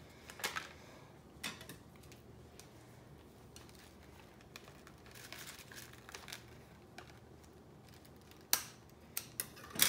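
Faint handling of a small cardboard box, then a few sharp snips near the end: scissors cutting the small plastic tab that holds a new doll wig to its cardboard.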